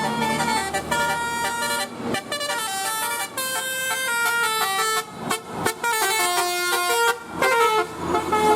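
Bus 'telolet' multi-trumpet air horn playing a quick melody of stepping notes, broken by a few short pauses between phrases.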